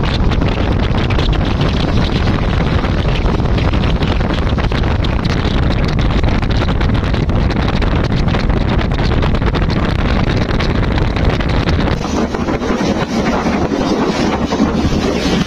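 Wind buffeting the microphone during a ride in a moving vehicle: a loud, steady rushing noise. About twelve seconds in, the deep rumble thins and a brighter hiss takes over.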